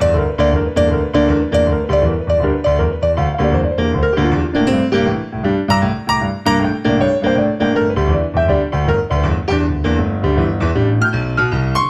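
Background music: a piano piece of quickly repeated notes at a steady beat.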